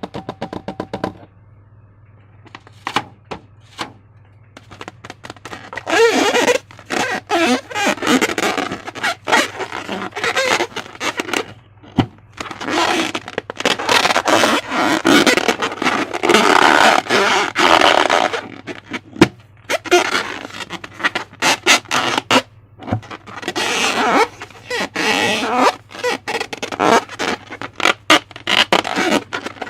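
Slime being squished and worked by hand, making sticky, irregular clicking and crackling. Sparse at first, it turns dense about six seconds in and goes on in spells with brief pauses.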